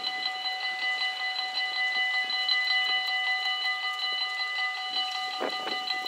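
Level-crossing warning bells ringing, a rapid, steady electronic ring of several tones that sounds while the crossing barriers come down. A dull knock comes a little over five seconds in.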